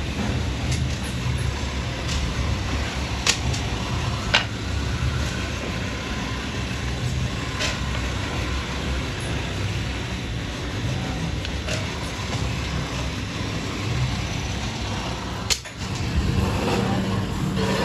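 Electric motor spindle running steadily while a carved wooden tray is pressed against its spinning end, with a few sharp ticks. The sound drops out briefly near the end.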